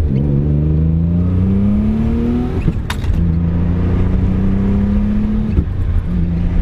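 Audi S4's twin-turbo V6 pulling hard under full boost, heard from inside the cabin. The engine note climbs in pitch, drops at an upshift with a sharp click just under three seconds in, climbs again, and drops at a second upshift about five and a half seconds in.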